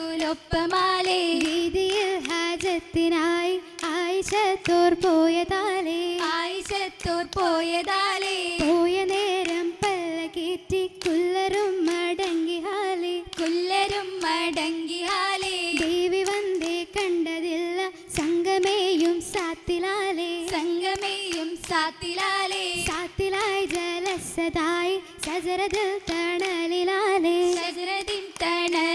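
Oppana song sung by a group of female voices, with the dancers' rhythmic hand clapping.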